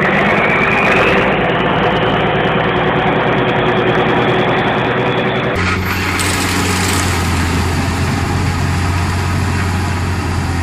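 Heavy vehicle engine running hard, with a slowly rising whine over the first half; about halfway through the sound cuts abruptly to a different engine's steady low drone.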